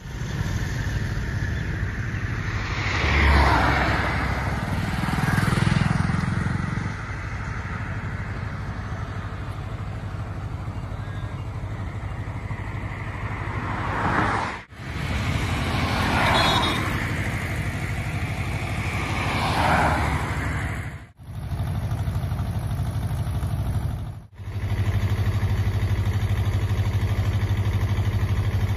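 Road traffic: vehicles passing one after another, each swelling and fading as it goes by, over a steady engine rumble. The sound drops out briefly three times. In the last few seconds a steady low engine hum, as of a vehicle idling close by, takes over.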